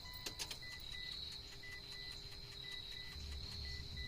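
Crickets trilling steadily, with a faint short electronic beep repeating at an even pace and a couple of small clicks about a quarter second in.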